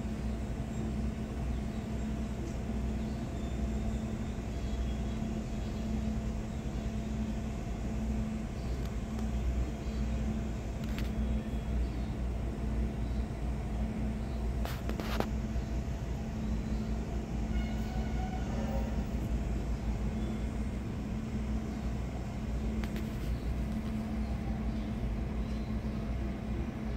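A steady low rumble with a constant hum, the kind of sound a motor or distant traffic makes, with a couple of faint clicks midway.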